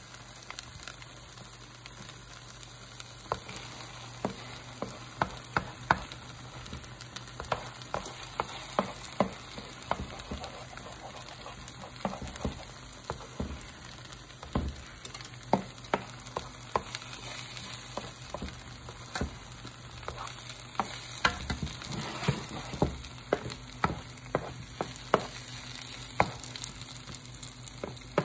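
Eggs sizzling in a nonstick frying pan as they are scrambled with a spatula, with a steady hiss and irregular sharp clicks of the spatula against the pan, starting a few seconds in and coming more often in the second half.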